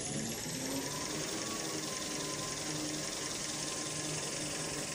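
Paper rewinding machine for kitchen towel and toilet paper running, with a steady mechanical hum. A high whine rises in pitch and levels off about a second in.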